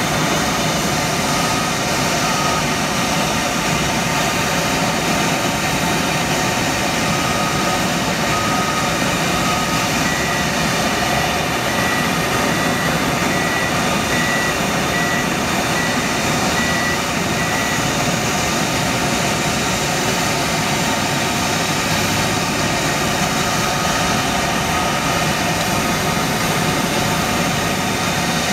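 Steady, loud drone of heavy engines and machinery on an airport apron, where a military forklift is working. A warning beeper sounds a steady series of high beeps for several seconds in the middle, and a lower beep comes a few times earlier.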